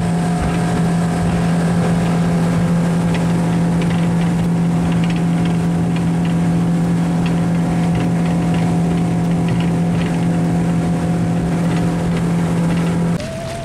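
Outboard motor driving an aluminium skiff at steady cruising speed, one constant engine tone with no change in pitch. The tone cuts off shortly before the end.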